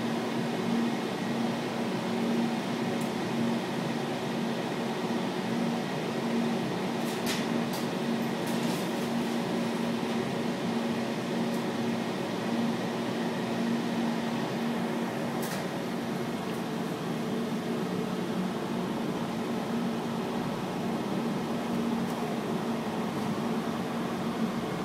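Steady hum inside a Portland Aerial Tram cabin as it travels along its cables, with a constant low tone throughout. A few faint clicks come about a third of the way in and again past the middle.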